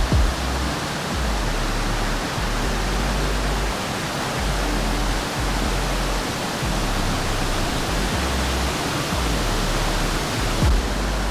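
Steady rush of a mountain-river waterfall, an even noise, with two short low thumps, one at the start and one near the end.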